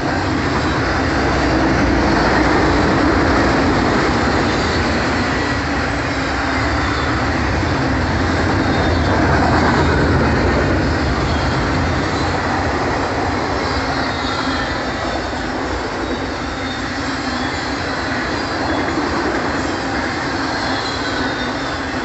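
Intermodal freight train's double-stack container cars and trailer flatcars rolling past on steel rail: a steady, loud rolling rumble and rattle, with faint high squealing tones from the wheels.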